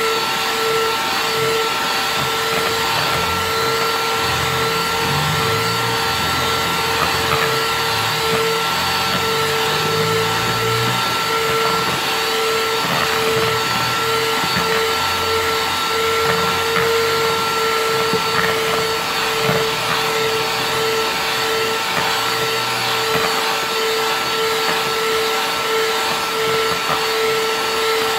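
Electric hand mixer running steadily, its beaters whipping cream in a plastic bowl: an even motor whine over a constant rush.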